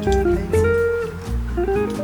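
Background music: a plucked acoustic guitar melody over a steady bass line, with a relaxed jazzy feel.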